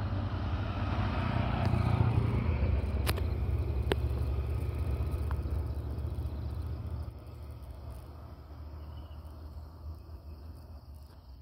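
A road vehicle drives past. Its engine rumble and road noise are loudest about two seconds in, then fade, dropping off about seven seconds in.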